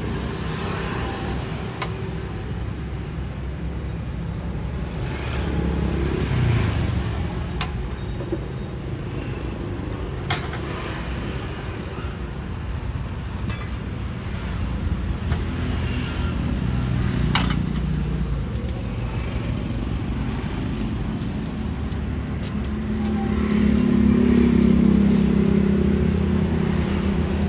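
Road traffic going past: engine noise that swells and fades several times, loudest near the end, with a few sharp clicks among it.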